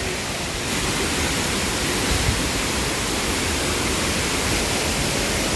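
Steady rush of a waterfall, an even hiss across all pitches that grows a little stronger a little under a second in.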